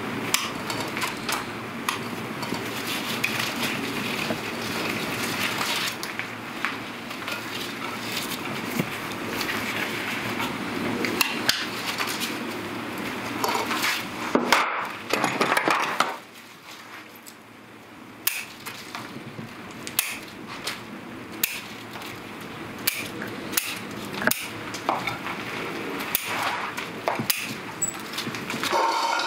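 Clicks and knocks of bonsai work: a terracotta pot handled and knocked on a stone slab, and scissors snipping juniper shoots. These run over a steady rushing noise that drops away suddenly about halfway through.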